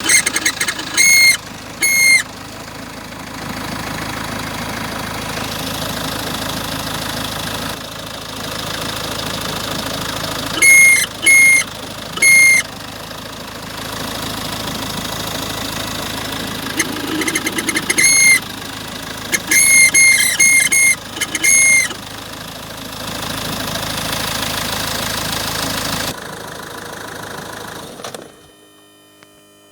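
Renault Kangoo 4x4's 1.9 dCi four-cylinder turbodiesel running steadily at idle, then shut off, dying away about 28 s in. Over it come groups of loud, short, high-pitched chirps, several in a row.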